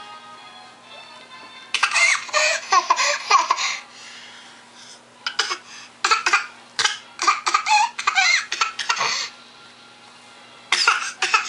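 A baby laughing hard in repeated bursts, in three spells: about two seconds in, again from about five to nine seconds, and once more near the end.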